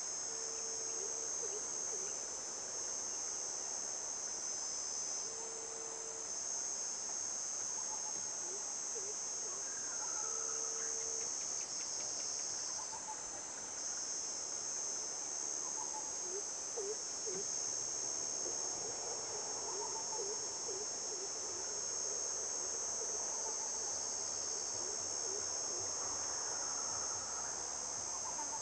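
Steady high-pitched shrilling of an insect chorus from crickets or cicadas. Occasional short chirps sound beneath it, among them a short low note heard three times about five seconds apart in the first ten seconds.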